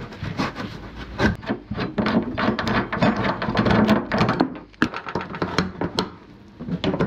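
Hands working on car seat parts: sharp clicks and knocks of metal brackets and tools, over rubbing and rustling of upholstery and foam that is densest in the middle and thins out near the end.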